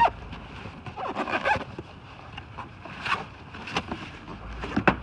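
Cardboard box and packing being handled as new brake rotors are unpacked: scattered rustling with a few sharp clicks and knocks.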